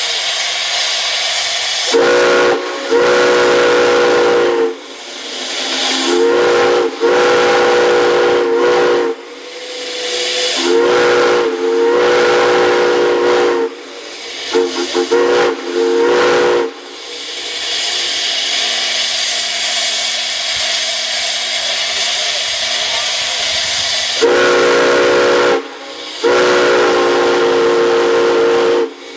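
Steam chime whistle blowing a series of blasts, short and long, several tones sounding together as one chord. Steam hisses between the blasts, and there is a long stretch of hiss alone in the middle before two more long blasts near the end.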